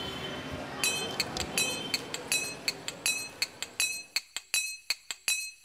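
Rhythmic metallic clinking: a hard object striking metal about three times a second, each strike ringing briefly at the same pitch. Street noise underneath drops away about two-thirds of the way through, leaving only the clinks.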